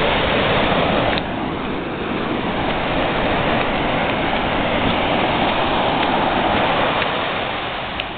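Ocean surf washing up the beach at the water's edge, a steady rush of foaming wash over the sand that swells in the middle and eases near the end.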